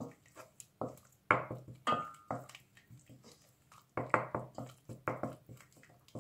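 Wooden spoon knocking and scraping against a stainless steel pot while stirring green curry paste into thick coconut cream to dissolve it: a string of irregular knocks, a few with a brief metallic ring.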